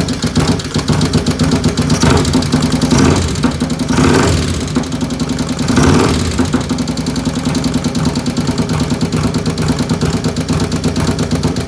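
V-twin motorcycle engine, bored out to 95 cubic inches and fitted with 510 cams, running at idle with a nasty ticking riding over the exhaust. The engine rises briefly twice, about four and six seconds in.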